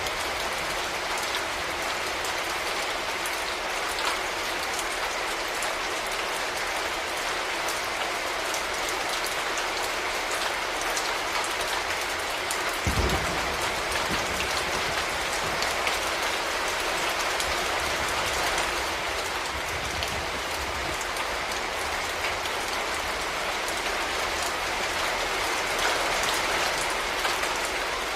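Steady rain falling, with fine individual drops pattering on a surface throughout, and a brief low thump about halfway through.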